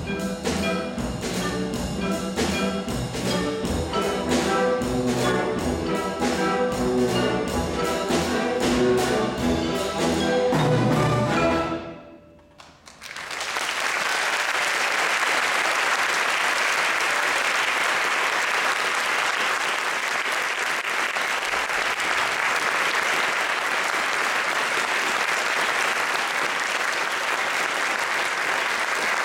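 Orchestra with brass playing a piece to its close, the music cutting off about twelve seconds in; after a moment's pause the audience breaks into steady applause.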